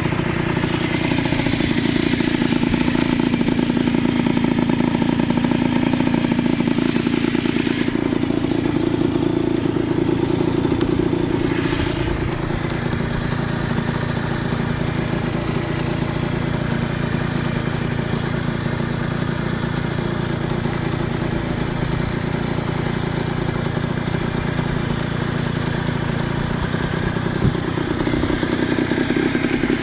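Honda NSR50's 49 cc two-stroke single-cylinder engine idling steadily, a little louder in the first twelve seconds and again near the end.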